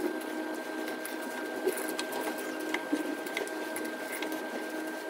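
Soft drips and light taps as water-soaked fried lentil dumplings (dahi bhalla) are squeezed out over a bowl and set down in a glass dish, over a steady faint hum.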